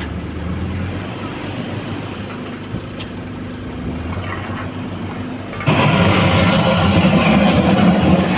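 Motor vehicle engine running steadily with a low hum; about two-thirds of the way in a much louder rushing noise comes in abruptly and stays.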